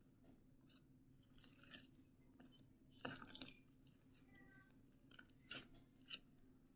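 Glitter slime being mixed: faint, irregular sticky clicks and crackles, the loudest cluster about three seconds in.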